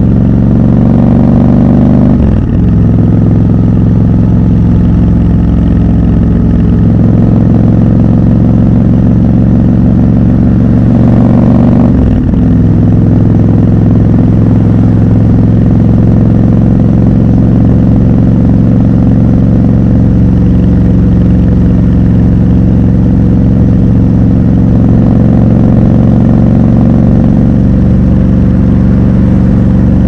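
Triumph Scrambler 1200 XC's 1200 cc parallel-twin engine pulling under throttle with its pitch rising, broken by two quick gear changes about two and twelve seconds in, then running at a steady cruise.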